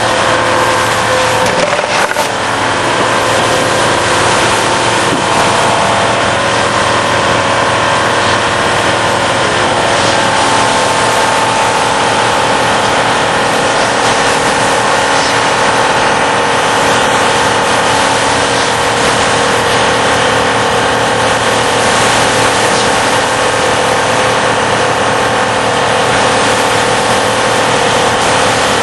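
Horizontal foam cutting machine running on a belt conveyor while cutting a polyurethane foam block: a steady machine whine over a dense hiss. There is a short knock about two seconds in.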